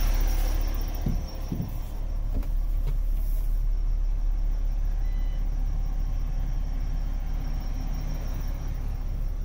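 MAN TGX 26.400 truck's straight-six diesel engine idling, a steady low rumble heard from inside the cab. A few light knocks come in the first three seconds.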